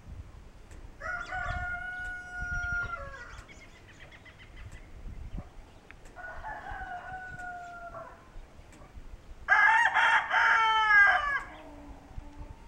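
Kencana rooster, a homegrown Ameraucana × Barred Rock hybrid, crowing three times. The first two crows are moderate and the third, near the end, is much the loudest.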